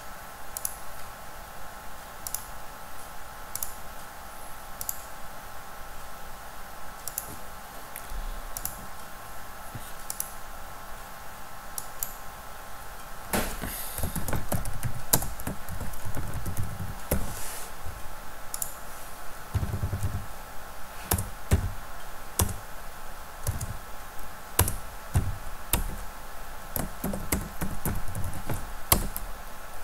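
Computer keyboard typing, dense rapid keystrokes from about halfway in as text is entered into a form, after a stretch of sparser single clicks.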